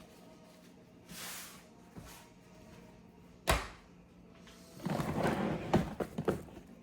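Kitchen handling sounds: a brief swish, then a single sharp knock about halfway through, then a run of clunks and clatter as things are moved and set down.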